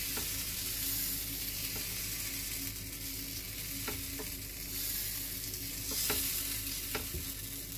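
Dosa batter sizzling on a hot tawa while a steel spoon spreads it in circles. A few light taps of the spoon against the pan sound through the sizzle.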